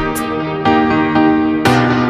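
Background music: a keyboard melody over a steady beat.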